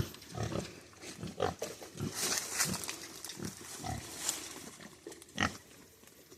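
Pigs grunting at close range: a string of short, low grunts, one after another.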